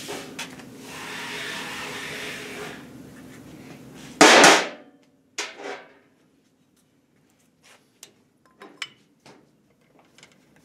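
Metal clanks and clicks of a steel connecting rod being handled at a rod-weighing fixture: a scraping rub at first, one loud ringing clank about four seconds in, then a few light clicks near the end as the rod is hung back on the fixture.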